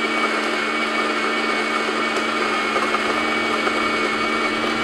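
Fellow Opus conical burr coffee grinder running steadily, grinding an 18 g espresso dose of beans at a fine setting. It is a pretty quiet, even motor hum.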